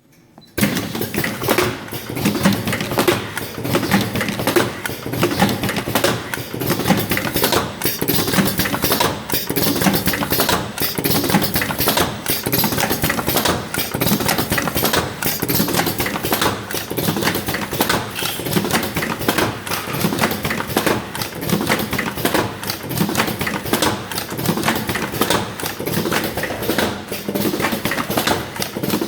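Vertical automatic cartoning machine running, a steady rapid clatter of mechanical clicks and knocks as it forms and fills cartons. The clatter starts about half a second in.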